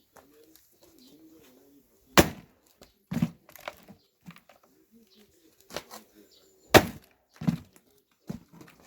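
Firewood being split with an axe: two hard, sharp strikes about four and a half seconds apart, with several lighter knocks of wood in between.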